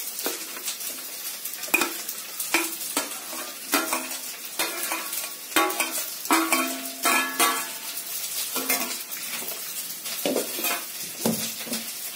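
A steel spoon scraping and knocking against a steel plate and the rim of a steel mixer-grinder jar as a soft fried masala mixture is scraped into the jar, many irregular knocks, some with a short metallic ring, over a steady faint hiss.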